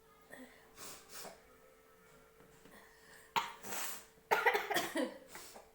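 A person coughing from chili irritation in the nose while trying to force a sneeze: a sudden harsh cough a bit over three seconds in, then a longer voiced cough about a second later, after a few faint breaths.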